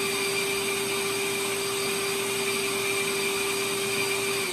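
DEWALT DWV010 dust extractor's motor running steadily with a constant whine, still on its run-on delay after the tool plugged into its outlet has been switched off. At the very end it switches itself off and its pitch starts to fall as the motor winds down, showing the automatic tool-activated shut-off works.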